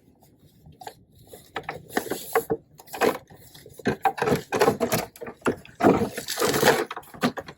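Hands fiddling with the small plastic parts and wires of a remote-control car: irregular clicks, taps and rubbing, busiest near the end.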